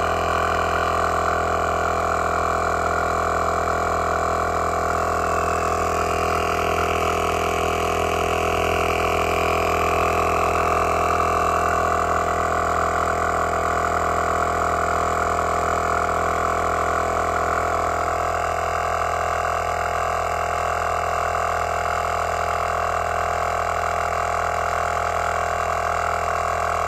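Heyner Big Air 40L Pro 12V piston air compressor running steadily under load as it inflates a van tyre towards 36 psi. Its tone shifts slightly about two-thirds of the way through.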